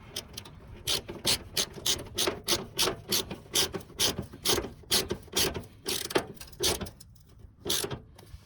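Hand ratchet with a 10 mm socket clicking as it tightens a fender bracket bolt, about three clicks a second, slowing and stopping near the end as the bolt snugs down.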